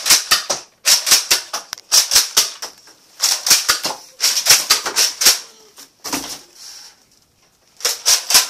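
Spring-powered Nerf dart blaster being primed and fired in rapid bursts: sharp plastic clacks about four to five a second, in runs separated by short pauses.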